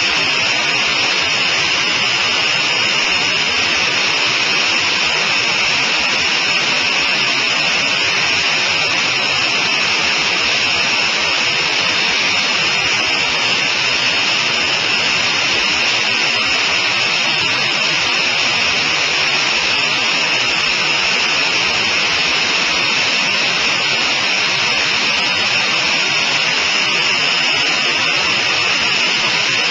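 Loud, steady in-flight cockpit noise of a Sonerai I single-seat homebuilt aircraft: engine, propeller and rushing air blended into a constant hiss that holds the same pitch throughout.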